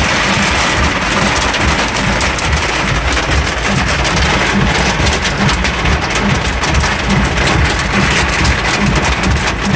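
Heavy downpour drumming on a car's roof and windshield, heard from inside the car: a loud, steady, dense rush with an uneven low rumble beneath it.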